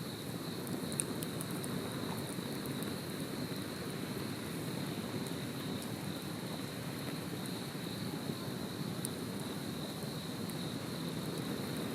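Steady high-pitched trilling of insects, likely crickets, over the low, even sound of a campfire burning, with a few faint crackles from the fire.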